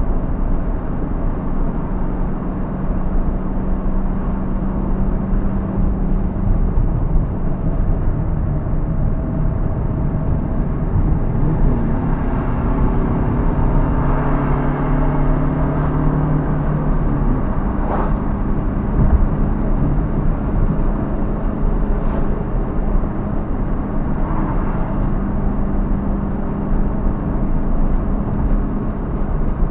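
A car being driven, its engine running under steady road and tyre noise. The engine note changes pitch about halfway through as the revs change, and a few sharp ticks come through.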